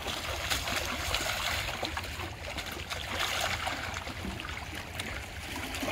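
Water splashing and lapping against shoreline rocks as a hooked cownose ray thrashes in the shallows, with many short scattered splashes.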